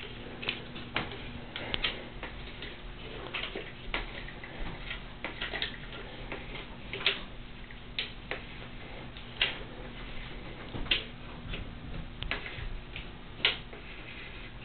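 Irregular light clicks and taps of a plastic camera tripod being handled as its sections are unlocked and extended, a few every couple of seconds.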